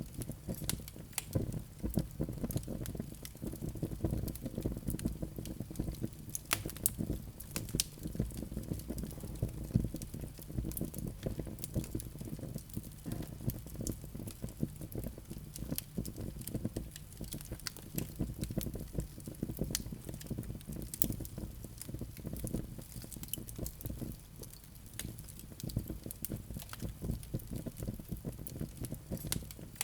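Wood fire burning in a fireplace, crackling and popping with many small irregular snaps over a low steady rumble.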